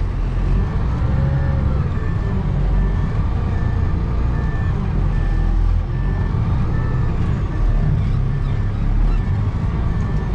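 Concrete mixer truck's diesel engine running under a low rumble while its reversing alarm beeps steadily, about two beeps a second.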